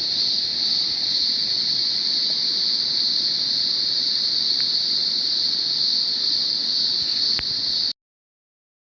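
A steady, high-pitched insect drone over a low, even rush of distant falling water. A single click comes about seven seconds in, and all sound cuts off abruptly soon after.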